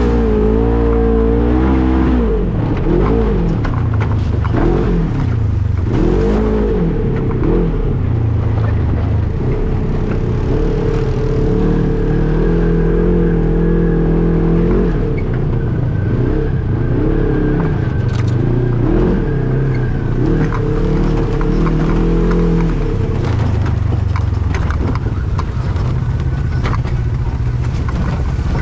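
Off-road vehicle engine under constant throttle changes on a tight trail. Its pitch rises and falls again and again as it accelerates and backs off, with scattered knocks and rattles over rough ground.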